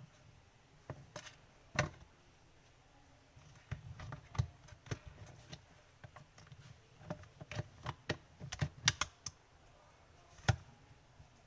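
Irregular light clicks and taps of mop-handle parts being handled and worked on by hand, busiest around four seconds in and again around eight to nine seconds in.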